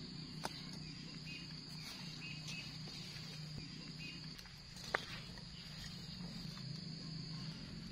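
Steady high-pitched drone of insects over a low steady hum, with a few faint clicks and one sharper tap about five seconds in.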